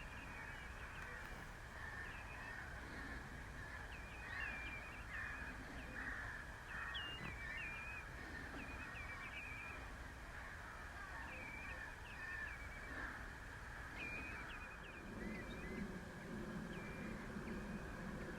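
Many birds calling at once: short, harsh calls repeated over and over, over a dense background of more distant calls, as at a flock of waterbirds or shorebirds. A low steady sound joins about fifteen seconds in.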